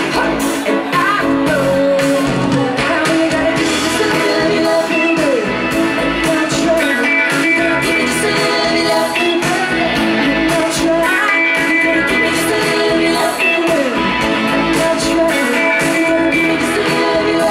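A live pop-rock band playing a song: a female lead vocal over electric guitar, bass guitar, keyboards and drums with a steady beat.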